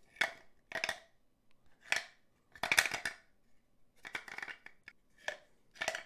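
Aztec Passage wooden puzzle box shaken hard in quick irregular bursts, the loose piece inside rattling and clacking about seven times. The box is being shaken to work the long piece out.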